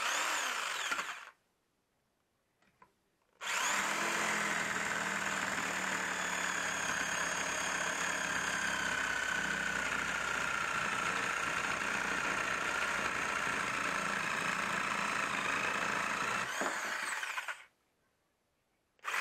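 Restored electric jigsaw cutting a laminated wooden board: a brief run in the first second, then after a pause one long steady cut of about fourteen seconds with a steady motor whine, stopping near the end. This is the repaired saw tested under load.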